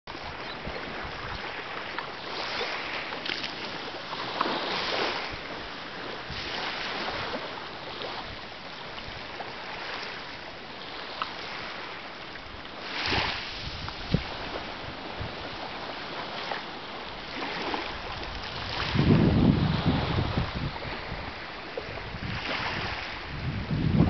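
Small waves washing onto a sand beach, each wash swelling and fading every few seconds. Gusts of wind buffet the microphone with a low rumble, strongest about nineteen to twenty-one seconds in and again at the very end.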